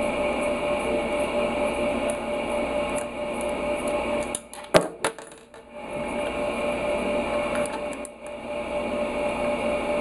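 A small metal screw from the air-horn compressor's housing drops with a sharp clink, about five seconds in, followed by a smaller second clink, as the housing bolts are taken out with a screwdriver. A steady hum runs underneath.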